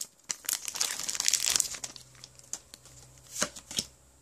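Foil wrapper of a Pokémon trading-card booster pack crinkling as it is torn open and pulled off the cards. The crinkling is densest over the first two seconds, then thins to a few clicks, with two sharp taps near the end.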